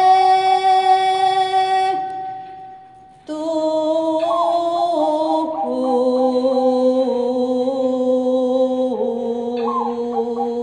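A woman singing a slow Javanese song in long held notes with small ornamented turns. The voice fades away about two seconds in and comes back about a second later.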